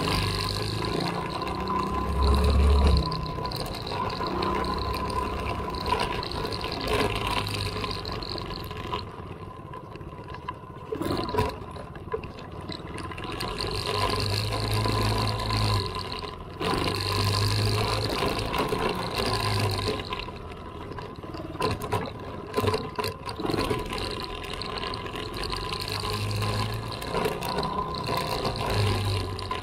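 Small off-road vehicle engine running while riding a bumpy dirt trail, with rushing wind noise and low rumbles on the microphone. It grows louder and quieter several times.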